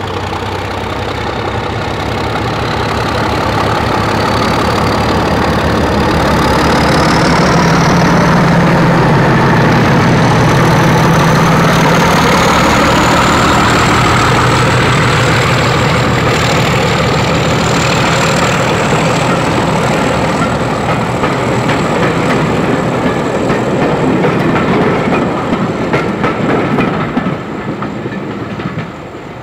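Diesel train working under power, its engine running with a high whine that rises in pitch over about the first fifteen seconds and then holds steady. The sound fades near the end as the train moves on.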